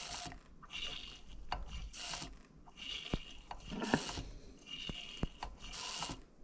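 Brake master cylinder being bench bled: its piston is pumped in short strokes with a screwdriver, about once a second, each stroke a brief hissing rub, with a few sharp clicks between them, pushing air bubbles out of the fluid.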